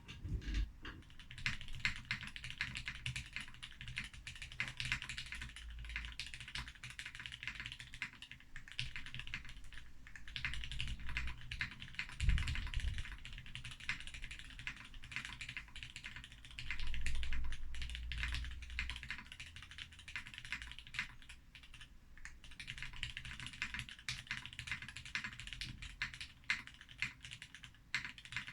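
Continuous fast typing on a Brutal60 mechanical keyboard with lubed and filmed H1 switches on a POM plate over foam: a dense stream of key clacks, with deeper knocks now and then, the loudest about twelve seconds in.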